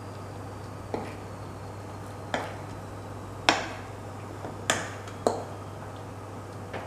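Metal fork clinking against a ceramic bowl while crayfish pieces are turned through tempura batter: about six sharp taps, irregularly spaced, the loudest about halfway through.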